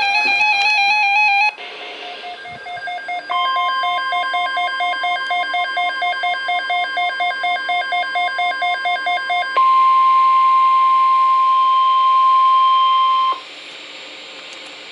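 NOAA Weather Radio emergency alert tones: a warbling digital header burst, then rapid beeping at about five beeps a second, joined by the steady single-pitch warning alarm tone. The alarm tone goes on alone and louder for about four seconds before cutting off suddenly, leaving low radio hiss.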